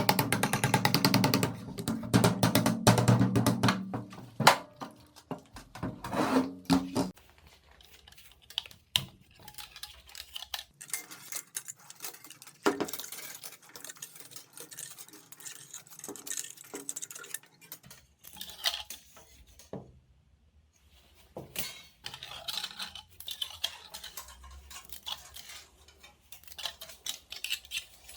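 Background music with a beat for the first several seconds, then scattered small clicks and metallic clinks at irregular intervals.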